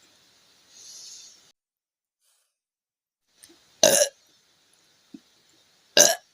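A woman burping twice, loudly and about two seconds apart, after gulping the fizzy drink Appy Fizz. A soft hiss comes about a second in.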